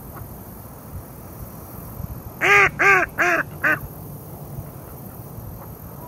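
Mallard duck quacking four times in quick succession, about two and a half seconds in, the last quack the shortest.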